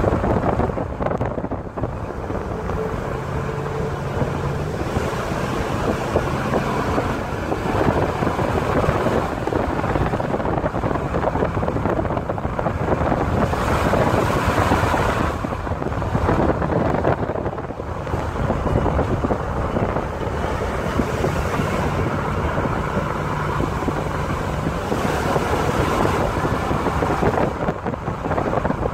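Wind buffeting a phone microphone held out of a moving pickup's window, surging and easing in waves, with road noise and a low engine hum from the truck underneath.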